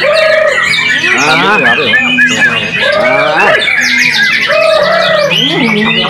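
White-rumped shama singing a fast, varied song of whistles, sweeping notes and trills, with a run of rapid repeated high notes about halfway through.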